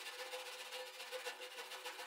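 Background music with a steady held tone, over the scratchy rasp of a hand wire brush scrubbing rust off a steel wheelbarrow handle in quick, irregular back-and-forth strokes.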